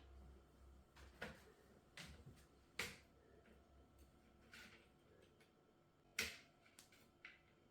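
Quiet handling sounds: about six short, sharp clicks and swishes at irregular intervals, the loudest near three seconds in and about six seconds in.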